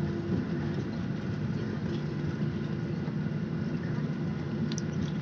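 Steady cabin noise of a Boeing 737 slowing on the runway after touchdown, heard inside the cabin by the wing: the engines' even drone with a low hum over rushing air.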